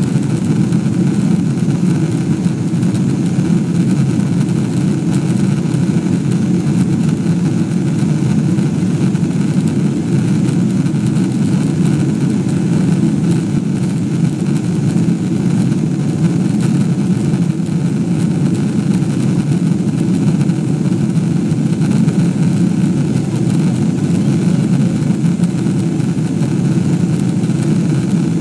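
Steady drone of a Boeing 777-200's GE90 jet engines and rushing airflow heard inside the passenger cabin in flight: a constant low rumble with a fainter hiss above it, unchanging throughout.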